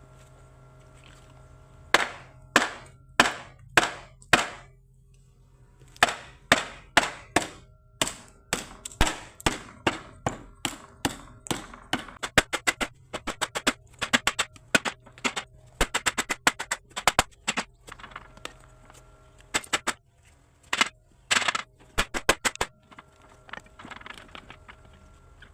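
Irregular hammer blows on wood, some single and some in quick runs of several, over a faint steady hum.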